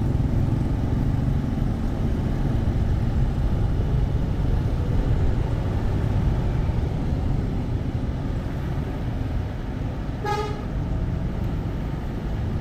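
Steady rumble of motor-vehicle and road noise, with one short horn toot about ten seconds in.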